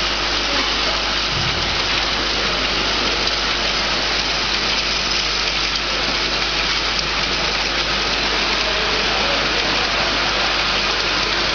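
Automatic filling and capping machine for 10–20 ml glass vials running steadily, a continuous even mechanical noise of the line and its vials.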